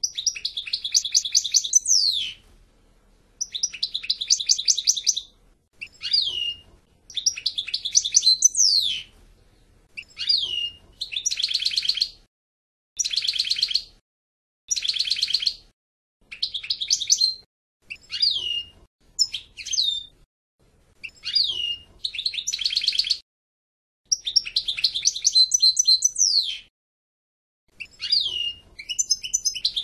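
European goldfinch singing: a string of one- to two-second phrases of rapid twittering notes and quick falling slurs, broken by short pauses.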